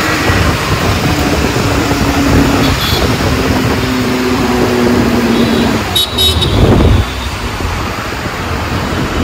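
Busy street traffic with car horns honking: two long held horn notes in the first half, and a louder vehicle sweeping past about two-thirds of the way through.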